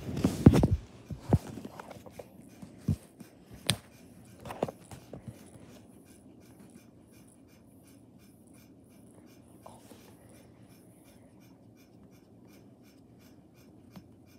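A burst of rustling right at the start, a few scattered clicks and knocks, then faint scratching strokes of a felt-tip marker being drawn across skin.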